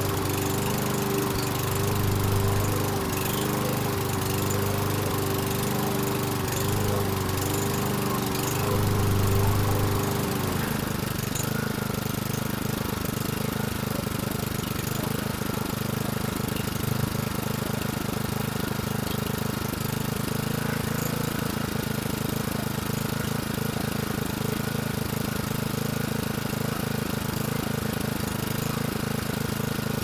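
A Toro Recycler lawn mower's Kohler engine running at idle with an uneven, fluctuating idle, its note swelling and easing in a slow repeating surge. The owner takes this for a carburetion problem. About ten seconds in the note changes and settles into a steadier run.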